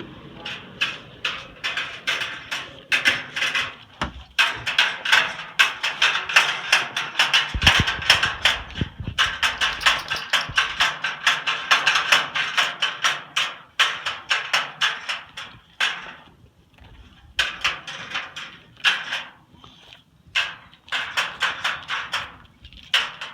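A dog making rapid, rhythmic tapping and clicking sounds, several taps a second in long runs broken by short pauses.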